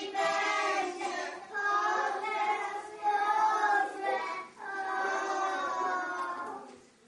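A group of young children singing a song together, in phrases of about a second and a half with short breaks between them; the singing stops shortly before the end.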